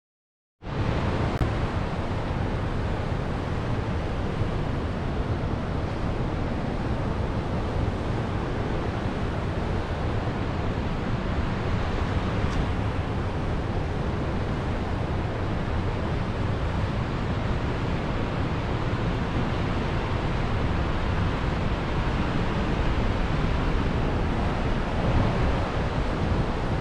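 Steady rushing of white water churning in the river below a concrete arch dam, mixed with wind on the microphone; it starts suddenly about half a second in.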